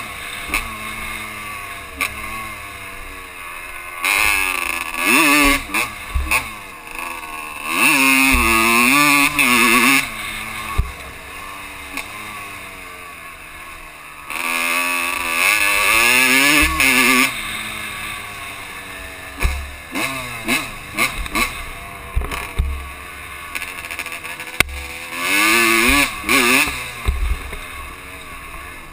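Honda CR125 two-stroke dirt bike engine, heard from the rider's helmet, revving up and falling back over and over as the throttle is opened and closed, in several loud spells with quieter stretches between. Low knocks from the rough trail and wind rush run underneath.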